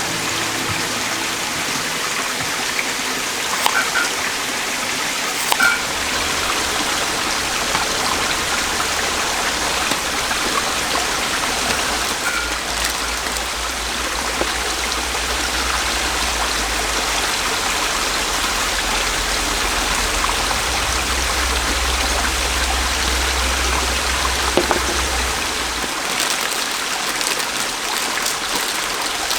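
Mountain valley stream rushing steadily close by. A low rumble comes in beneath the water for much of the middle and drops away near the end.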